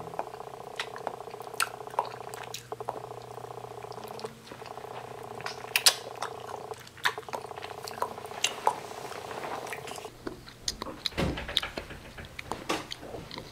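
Wet clicks and smacks of a mouth biting and sucking on a lemon, over a steady low buzz. The buzz stops about ten seconds in, and a few dull thumps follow.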